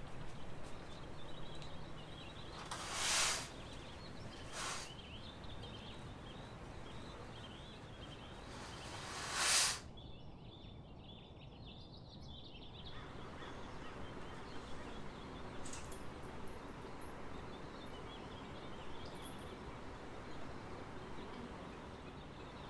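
Faint outdoor ambience with small birds chirping steadily. Two short rushing swells stand out, about three seconds and nine seconds in.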